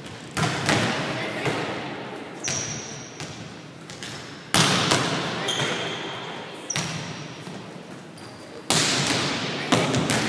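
Volleyballs being hit and bouncing on a hardwood gym floor: about five sharp smacks at uneven intervals, each ringing out in the echo of a large gym, with a few short high squeaks in between.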